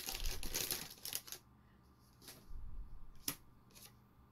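Foil wrapper of a Magic: The Gathering booster pack crinkling as the cards are pulled out of it, fading about a second and a half in. Quieter handling of the playing cards follows, with a few light clicks, the sharpest about three seconds in.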